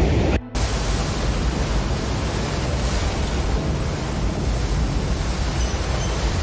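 Steady, even rushing of flowing floodwater, with a short dropout about half a second in.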